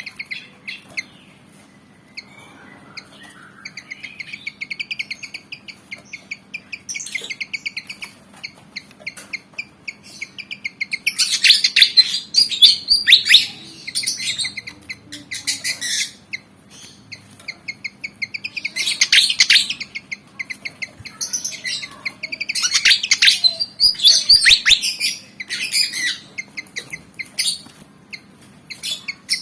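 Pied fantail (kipasan jawa) singing in bursts of rapid, high chirping notes: a run of fast, evenly spaced notes a few seconds in, then louder, denser bursts of song in the middle and again later.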